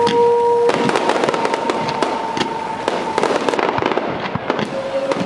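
Aerial fireworks bursting with dense, rapid crackling and popping, many sharp reports in quick succession.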